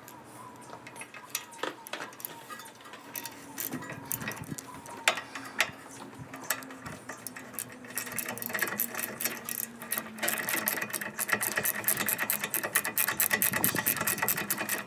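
Hand ratchet wrench clicking in a fast, even run as bolts are run in, after a few scattered metal tool clanks.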